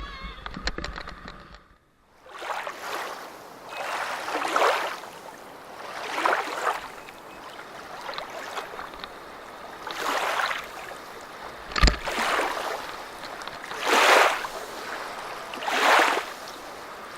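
River water splashing against a raft in repeated surges about every two seconds, with one sharp knock about twelve seconds in.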